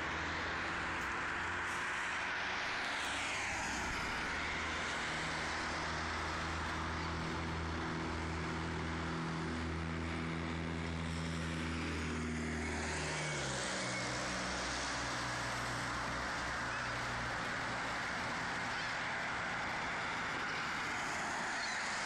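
Steady street traffic noise with an engine's low drone that drops in pitch as it passes about 13 seconds in, then fades.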